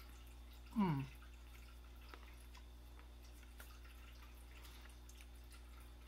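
A person eating chocolate: a short 'mmm' falling in pitch about a second in, then faint wet mouth clicks from chewing, over a steady low electrical hum.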